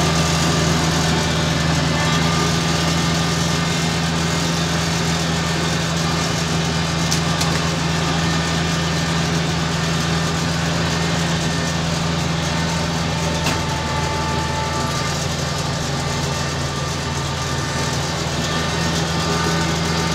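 Tractor engine running at a steady, constant speed: an even, low drone.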